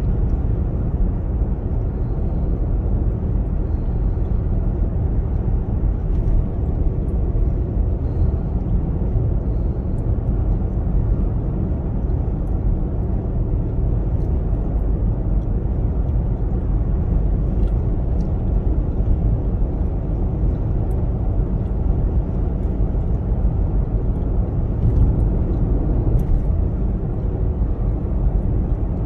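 Steady low rumble of tyre, road and engine noise inside the cabin of a Genesis GV70 cruising on an expressway.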